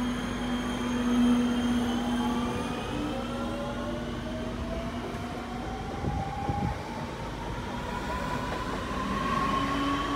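NordWestBahn class 440 (Alstom Coradia Continental) electric multiple unit accelerating away from the platform, its traction motors whining in several tones that rise steadily in pitch. A short run of wheel knocks comes about six seconds in.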